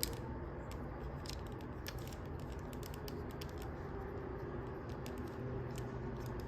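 Light, scattered plastic clicks from the joints and parts of a Transformers action figure as it is handled and straightened, over a steady low background hum.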